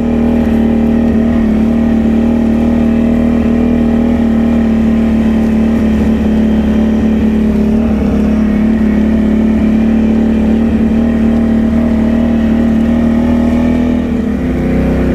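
Can-Am Outlander ATV engine running at a steady, even pitch as the quad rides along, heard from on the machine, easing off slightly near the end.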